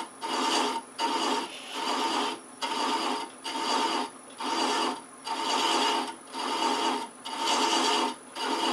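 Hand thread chaser cutting threads into a wooden box spinning on a lathe: a rasping scrape repeated about ten times, a little under once a second, as the chaser is swept across the wood again and again to deepen the thread.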